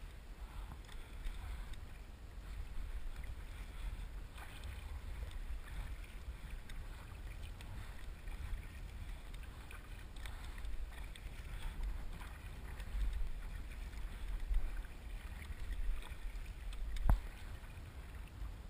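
Double-bladed kayak paddles dipping and splashing in calm water, with wind rumbling on the microphone. A single sharp knock near the end.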